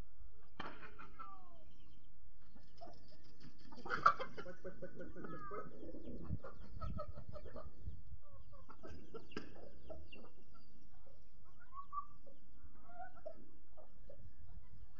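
Chickens clucking and calling on and off as a flock forages, with a single sharp click about four seconds in.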